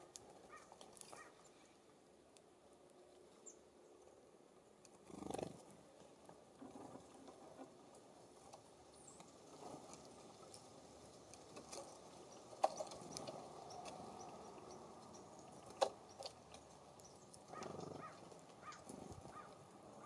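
Small songbirds at a feeding station: a few scattered sharp taps and knocks, two of the sharpest about three seconds apart past the middle, with faint high chirps over a quiet background.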